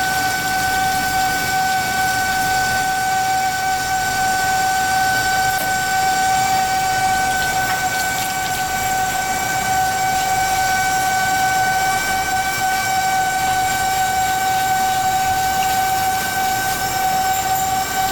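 Tap water running steadily into a stainless-steel sink, with a steady whine of one unchanging pitch throughout.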